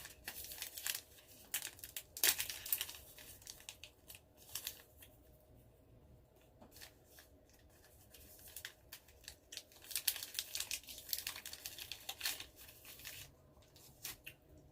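Crinkly snack wrapper being torn open and handled: irregular crackling and rustling in clusters, busiest near the start, around 2 s in and again from about 10 to 13 s.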